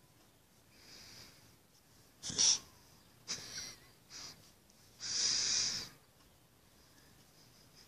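Small long-haired dog breathing out hard through its nose in a handful of separate bursts, the longest lasting about a second, past the middle.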